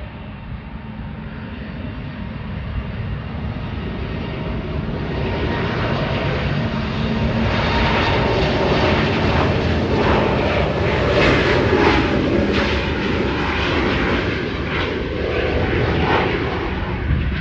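Airbus A320's twin jet engines at takeoff thrust. The sound builds steadily, with a crackling rasp that is strongest a little past the middle, then eases slightly near the end.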